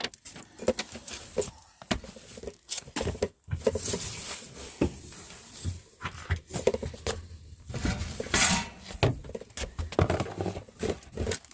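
Irregular clicks, knocks and rattles of objects being handled, with a brief scraping rush about eight seconds in.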